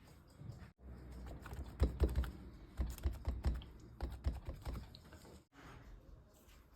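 A run of quick, irregular light taps and clicks, most of them between about one and five seconds in.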